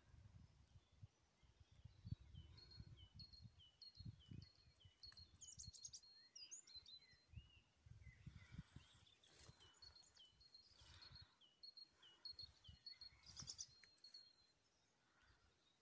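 Faint songbird song: two runs of quick, repeated high chirps, each lasting about five seconds, over irregular low rumbles.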